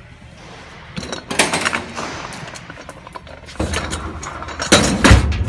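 Metal clattering and scraping as a pipe tri-stand is handled and slid into a job box, with heavy knocks near the end.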